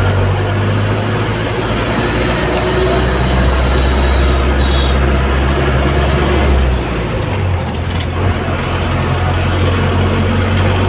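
Bus engine running, heard from inside the moving bus: a loud, steady low drone with road noise, whose deepest note drops away about seven seconds in as the engine's pitch changes. A thin high whine sounds faintly above it.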